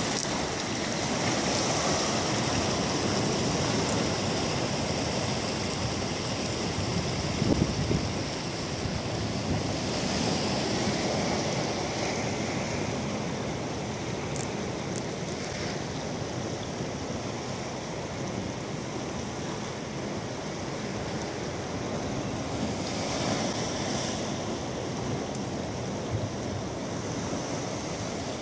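Sea surf washing onto a rocky shore, a continuous rushing noise that swells and eases every several seconds, with wind buffeting the microphone and a brief louder gust about seven and a half seconds in.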